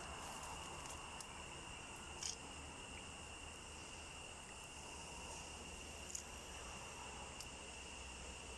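Faint, steady high-pitched chirring of crickets, with a few soft clicks.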